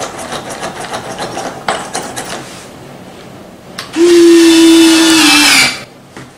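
Servoless retractable landing gear of an RC model airliner being worked: quick clicks and light knocks as the gear is moved, then its small electric retract motor runs loudly for about a second and a half, a steady whine that sags a little in pitch just before it cuts off.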